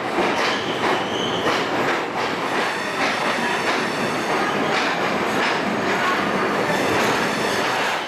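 A MEMU electric train's coach and wheels, heard from aboard, running into a station platform: a steady rumble and clatter over rail joints, with a brief faint wheel squeal about a second in.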